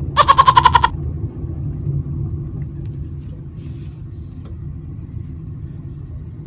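Car cabin noise while driving: a steady low rumble of engine and road. Near the start comes a loud burst of rapid pulsed beeping, about ten beeps in under a second.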